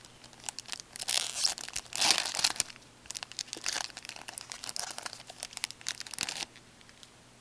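A hockey trading-card pack wrapper being torn open and crinkled in the hands, in bursts of crackling that stop about six and a half seconds in.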